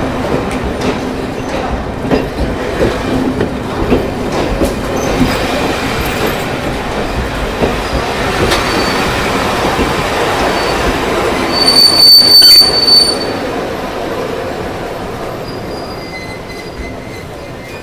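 Metro train pulling into a station: wheels rumbling and clacking over rail joints as it slows, with a loud high brake squeal about twelve seconds in, then the running noise dies down as it comes to a stop.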